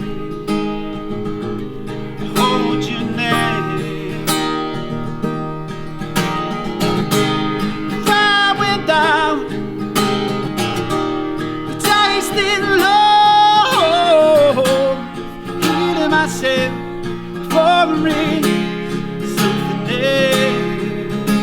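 Steadily strummed acoustic guitar with a man singing over it. Around the middle he holds long notes with a wavering vibrato.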